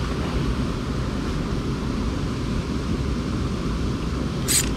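Steady wind rumble on the camera microphone, with one short sharp click near the end.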